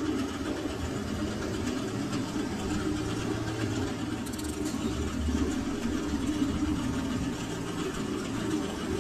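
Steady machinery hum, an even mechanical drone with no breaks or knocks.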